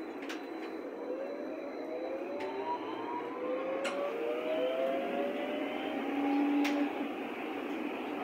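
Berlin U-Bahn HK-class train pulling away: the traction drive gives several whining tones that glide upward together as it gathers speed. There are a few sharp knocks along the way.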